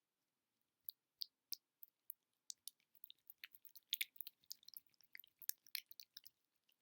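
Close-miked ASMR tapping and sticky clicking: a few separate sharp taps, then from about two and a half seconds in a fast, dense flurry of small crisp clicks that thins out near the end.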